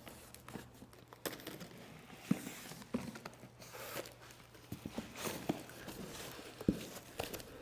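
Long cardboard box being opened and handled by hand: scattered light knocks, taps and scrapes of cardboard, with brief rustles.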